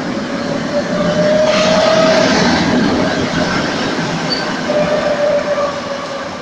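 Articulated tram passing close on street rails: wheels running on the track with a whining tone over the rumble, loudest about two seconds in, then fading as it moves away.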